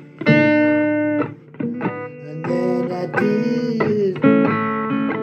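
Blues guitar playing an instrumental passage: picked single notes and short phrases, some held and left to ring, one slightly bent in pitch about three seconds in.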